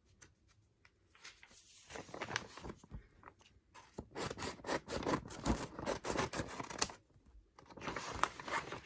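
Packaging being handled and pulled open, with dense crinkling, rustling and tearing in two stretches: a long one and a shorter one near the end.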